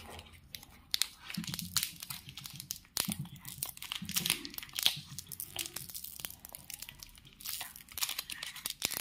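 Shiny plastic wrapper of a chocolate stick being torn open and crinkled by hand: a run of irregular sharp crackles and rips.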